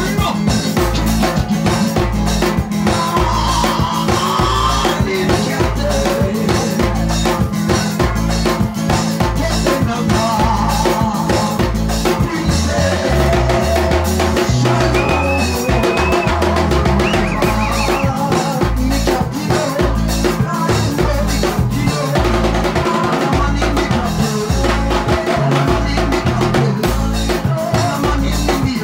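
Live band playing dance music: a drum kit beat over a stepping bass line, with melody lines on top.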